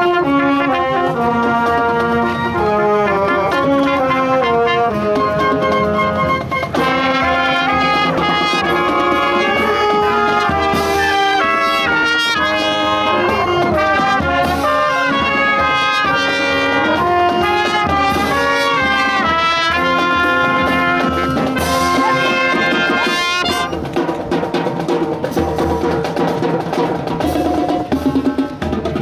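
School marching band playing: brass including trumpets, trombones and sousaphone, with saxophones and drums, in full ensemble. The winds thin out near the end, leaving the drums more to the fore.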